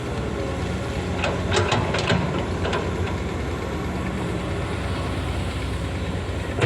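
PC 200 hydraulic excavator's diesel engine running steadily while digging coal, with a few sharp clanks and knocks between about one and three seconds in.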